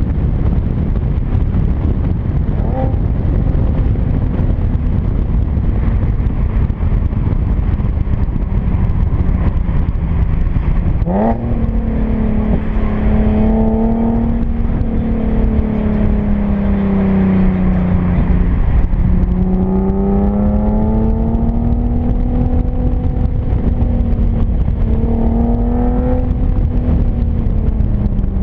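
Modified Infiniti G37xs 3.7-litre V6 exhaust (resonated test pipes and Ark Grip cat-back) heard from outside the moving car, under heavy wind and road rumble. About a third of the way in the exhaust note climbs sharply as the engine revs up, holds, sags and climbs again, then starts to fall near the end.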